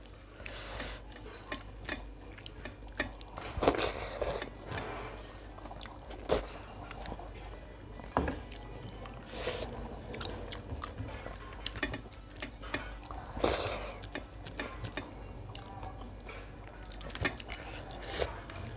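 Wet, close-up eating sounds: chewing and mouthfuls of Thakali dal-bhat with curries, with short sharp clicks and smacks every second or two.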